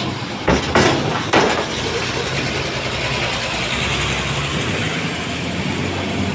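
Heavy vehicles' diesel engines running as they move off a ferry onto the steel ramp, with three sharp metal clanks in the first second and a half as wheels cross the ramp plates, then a steady engine hum.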